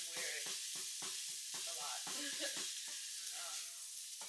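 Food sizzling in a frying pan, a steady hiss, with an indistinct voice over it.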